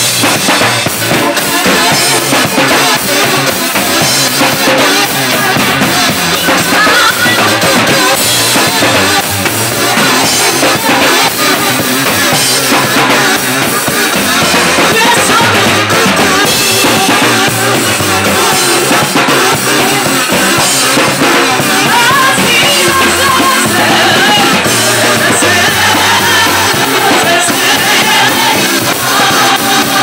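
Live band music at full volume: a drum kit keeps a steady beat under voices singing.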